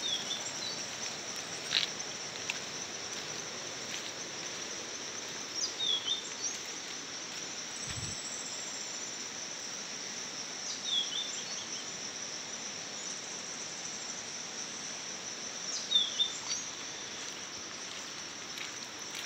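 Steady high-pitched trill of an insect chorus, with a short falling call from some other animal repeating about every five seconds.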